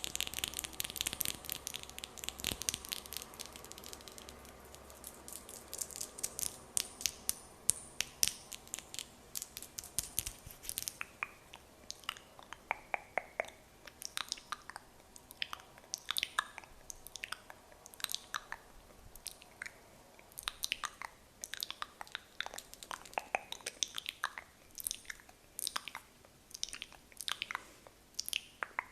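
Fingernails tapping and clicking on hands, close to the microphone: many crisp, irregular clicks, a dense flurry in the first few seconds, then sparser taps.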